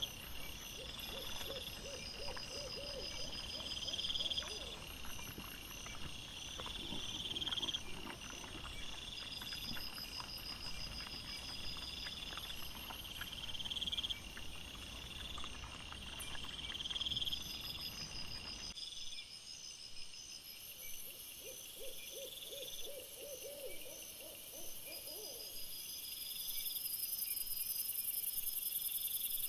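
Night insect chorus: crickets chirping in trains that repeat every couple of seconds, with a lower, rapid stuttering call heard twice. About two-thirds of the way through, the low background noise drops away abruptly at a cut between recordings.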